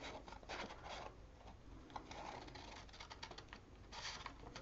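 Scissors snipping through printed paper: a quiet run of short, irregular cuts with paper rustling as a piece is trimmed down.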